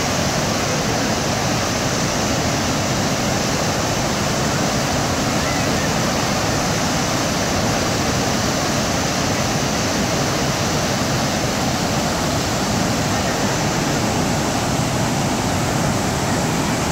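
A wide waterfall in full flood: a steady, loud rush of a heavy volume of water pouring over the falls.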